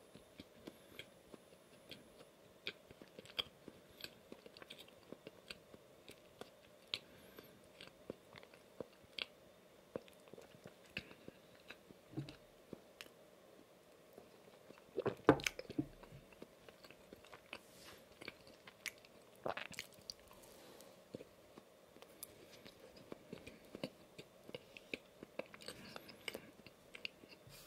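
Close-miked chewing of a red velvet donut, with many small wet mouth clicks. About halfway through comes a short run of louder sounds as a drink is swallowed.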